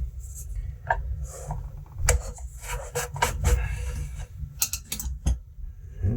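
The plastic starter housing of a Stihl MS 180 chainsaw being taken off by hand: irregular clicks, knocks and scraping rubs of parts and tools against the plastic.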